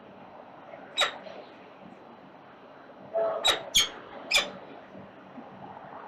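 Peregrine falcon chicks begging with short, squeaky calls while being fed: one about a second in, then a quick run of three or four near the middle, over steady background noise.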